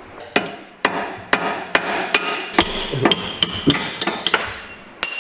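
A hammer striking a steel punch to drive the upper control arm pinch bolt out of a B8 Audi S4's steering knuckle. There are about a dozen sharp metallic blows, roughly two or three a second, some leaving a brief ringing.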